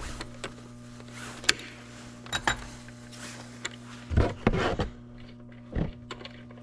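Scattered clicks and knocks of hand tools and metal parts as the car battery's terminal bolts are refitted, with heavier knocks about four seconds in and again near six seconds, over a steady low hum.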